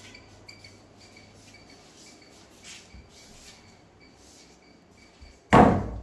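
Faint birds chirping outside, a short high call repeated several times a second. Near the end a single loud bang, a door knocking against wood.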